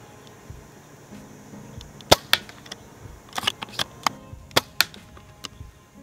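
ARES Amoeba AS02 spring-powered bolt-action airsoft sniper rifle firing one sharp shot about two seconds in, followed by a quick run of clicks and clacks as the bolt is cycled for the next shot.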